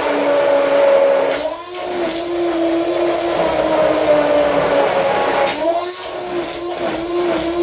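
Hand-held stick blender running in a plastic jug of smoothie mixture, a steady motor whine that briefly dips and recovers twice, about one and a half seconds in and again near six seconds.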